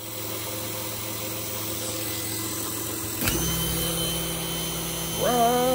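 Toyota Tundra alternator converted to a brushless motor, running on an e-bike controller with a steady electric hum and whine. About three seconds in a sharp click is heard and the hum changes. Near the end the whine rises quickly in pitch as the motor speeds up, then holds.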